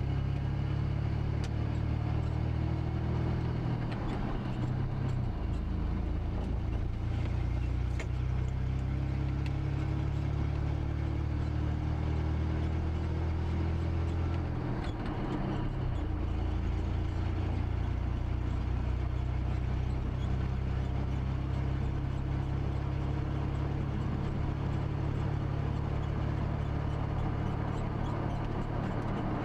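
Car engine and road noise heard from inside the moving car: a steady low drone whose pitch shifts about four seconds in and again about halfway through as the engine speed changes.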